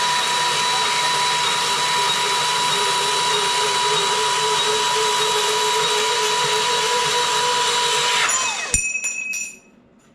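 Electric power tool motor running steadily with a high whine, then switched off about eight seconds in and spinning down with a falling pitch. A few light clicks follow.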